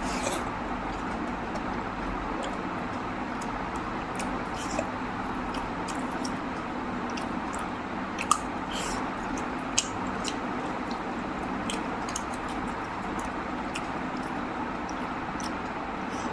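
A person chewing and eating mutton curry and rice, with small wet mouth clicks and a couple of sharper clicks near the middle, over a steady background hiss.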